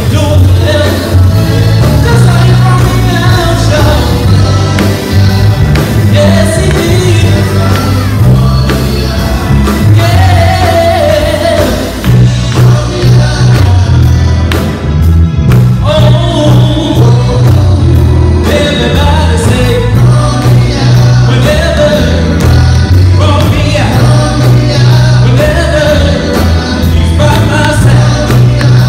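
Live gospel quartet music: a lead singer singing into a microphone over electric guitars, keyboard and drums, loud and full through the church PA.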